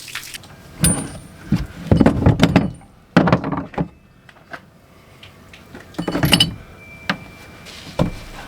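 Tools and metal parts being handled: a string of knocks and clanks, several close together about two seconds in, with a brief high metallic ring after the first knock and a longer ring near the end.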